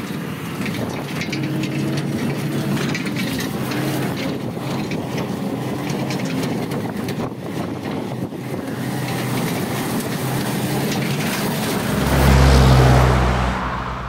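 A motor vehicle's engine running steadily under a rushing noise. A louder low rumble swells about twelve seconds in and fades away near the end.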